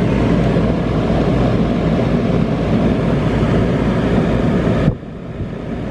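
Rheem Classic central air conditioner condenser running: a steady hum from its Copeland scroll compressor under the rush of the condenser fan. About five seconds in the sound suddenly drops to a quieter, duller level.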